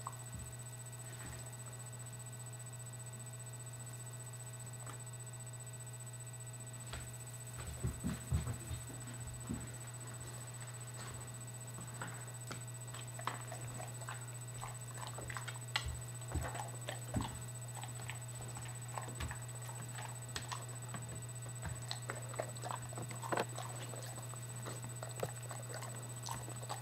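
Large dog (a Bouvier des Flandres) chewing treats and shifting about, with irregular short crunches and clicks from about seven seconds in, over a steady low hum.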